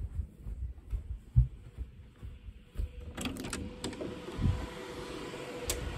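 Low thumps of a camera being carried while walking, then from about halfway a steady fan whir with a faint hum comes in: the cooling fans of a Cisco VG350 voice gateway running on their medium setting. A few sharp clicks are heard as the whir comes in and near the end.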